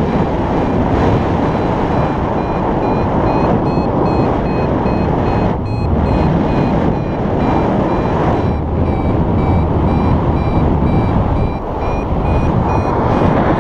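Paragliding variometer giving a steady run of short high beeps, their pitch edging up and down, over loud wind rushing across the microphone. The beeping is the vario's climb signal, telling the pilot the glider is rising in lift.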